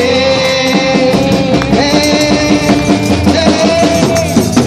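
Christian praise music played live: guitar and drums carrying on with held notes and a steady beat, with no lead vocal.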